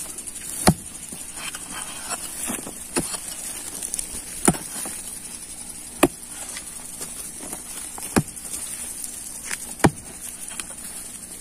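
A heavy grub hoe chopping into dry, hard-packed soil, about six sharp blows at roughly one every second and a half. The ground is compacted by cattle trampling and is hard as bone.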